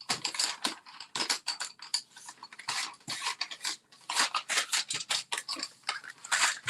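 Paper card stock and small crafting tools being handled on a work surface: a quick, irregular run of clicks, taps and paper rustles.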